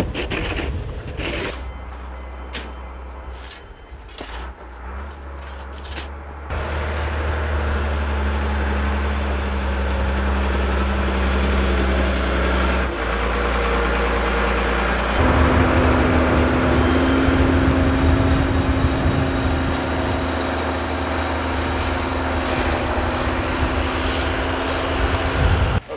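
Snow shovels scraping in short strokes, then a snow groomer's diesel engine running steadily and loudly as it pushes snow with its front blade; its engine note steps up about fifteen seconds in.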